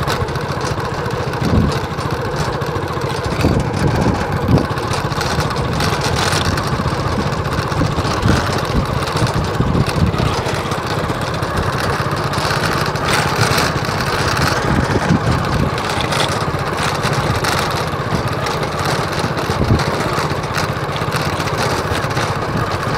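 Engine of a moving vehicle running steadily, with rough low rumble and wind noise on the microphone.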